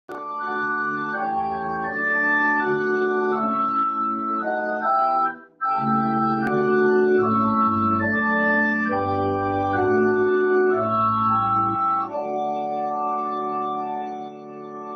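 Organ playing processional music in held chords with low bass notes, changing every second or so. The sound drops out for a moment about five seconds in and grows softer near the end.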